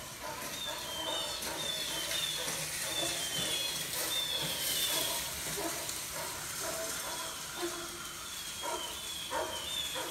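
Film soundtrack played through a home-theater speaker system: outdoor ambience with many short, high, falling chirps and dogs barking, the barks growing sharper and more frequent near the end.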